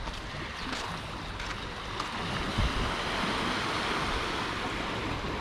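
Small sea waves washing against the shore, with a swell of surf in the middle. Wind buffets the microphone, with one low thump.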